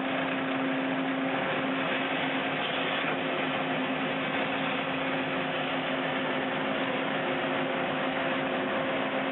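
Skid steer running with its brush cutter attachment: a steady mechanical drone with a low, even hum, without cutting impacts.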